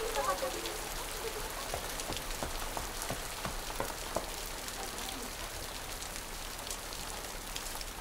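Imitation rain: a soft, steady patter of many small light ticks, like raindrops falling on a surface.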